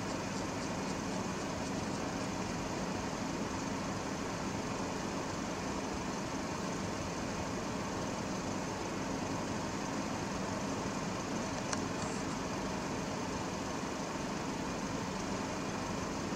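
Vehicle engine idling steadily, with a single brief click about twelve seconds in.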